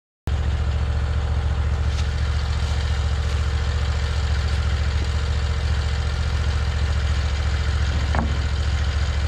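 Engine of a Hud-Son Oscar 336 portable bandsaw mill idling steadily with a low even tone, cutting in abruptly a moment in.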